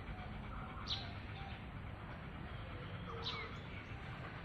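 A small bird chirps twice, about two seconds apart, each a short high note that drops in pitch, over a steady low background hiss.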